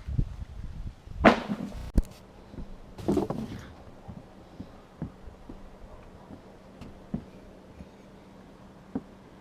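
Scrapes and knocks of work on a roof tear-off: a loud scrape about a second in, a sharp knock at two seconds and another scrape around three seconds, then faint scattered taps over a low steady hum.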